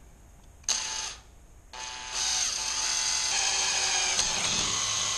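Cordless drill triggered for a short burst, then running steadily for about three and a half seconds as it drills the second mounting hole into the generator's frame.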